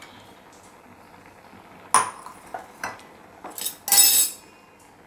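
Metal kitchen utensils and a steel pot clinking. A sharp clink comes about two seconds in, followed by a few lighter taps, then a louder clatter near four seconds with a short ring.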